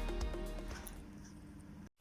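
Background music fading away, cutting to silence just before the end.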